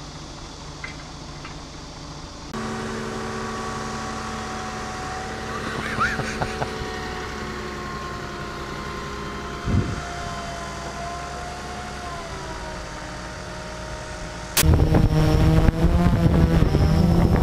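Small camera drone's propellers whining with a steady, slightly drifting pitch, across several spliced clips. A brief thump comes about two thirds of the way in. Near the end an abrupt cut brings a much louder whine whose pitch wavers up and down.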